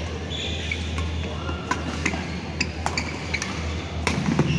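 Badminton rackets cracking against shuttlecocks, a string of sharp hits from the rally and neighbouring courts, loudest about four seconds in as a player jumps into a smash. Short squeaks, typical of court shoes on the hall floor, come between the hits over a steady low hum.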